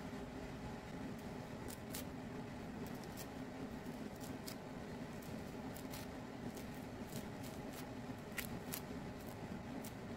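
A tangerine being peeled by hand: many small, sharp, irregular crackles and tears as the rind comes away from the fruit, over a low steady hum.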